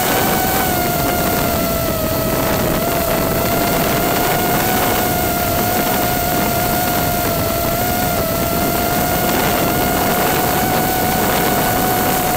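A steady high whine holding one pitch, wavering slightly, over a constant hiss.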